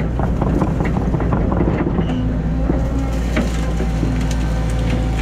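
Excavator's diesel engine running steadily, with frequent sharp cracks and clanks throughout.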